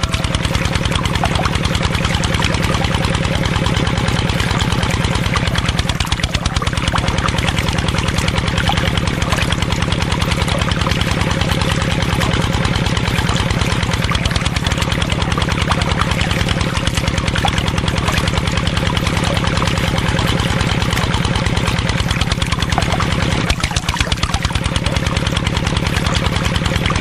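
Small motor of a miniature DIY water pump running steadily, with a fast, even buzz and a low hum while it pumps water.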